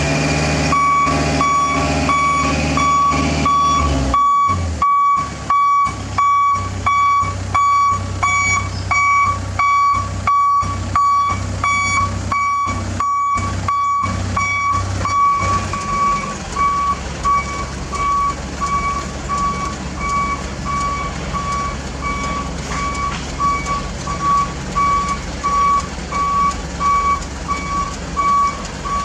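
A vehicle's reversing alarm beeping steadily, about two beeps a second, over a diesel engine running low.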